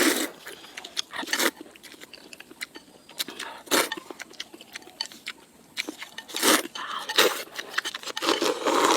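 Crunchy biting and chewing: someone eating crisp food, with irregular crackles and several louder crunches.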